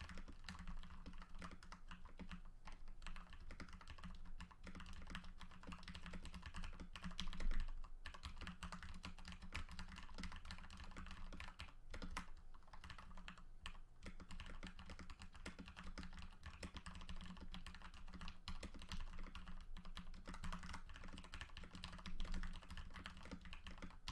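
Continuous typing on a Cooler Master MasterKeys PBT mechanical keyboard with lubed Cherry MX Red linear switches, a dampened case and lubed Costar stabilizers, on a desk pad over a glass desk. A steady stream of keystrokes, with one louder low thump about seven and a half seconds in.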